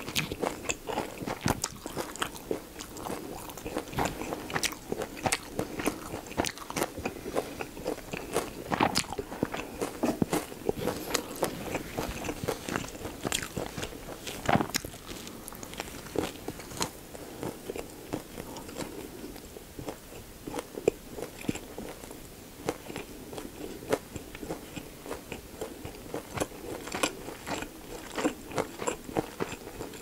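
Close-miked chewing of pork belly gimbap with lettuce and pickled radish: a steady run of wet, crisp crunches and mouth clicks, with the loudest crunch about halfway through.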